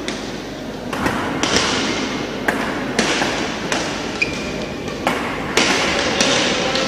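Badminton rally: rackets striking the shuttlecock in a run of sharp hits about a second apart, ringing in a large sports hall.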